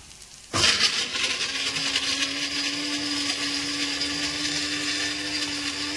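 A small electric motor starts suddenly about half a second in and runs steadily with a loud hiss and a low hum.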